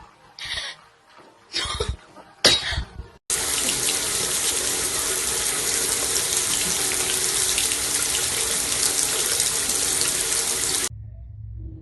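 Three short bursts of noise, then running water, like a tap running at full flow, that starts suddenly about three seconds in, stays steady, and cuts off abruptly near the end.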